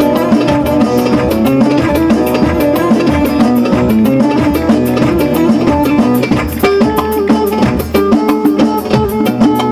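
Amplified live band playing an instrumental passage of a Turkish folk song: a fast plucked-string melody over a steady drum beat.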